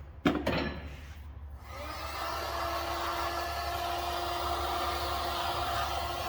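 A sharp knock, then about two seconds in an electric heat gun starts and runs steadily, a blowing hiss with a held hum, warming the axle housing so the freezer-chilled solid bushings can be pressed in.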